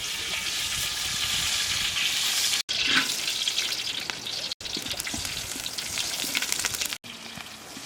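Snails frying in a pan: a steady hissing sizzle with fine crackles, broken by three very short dropouts.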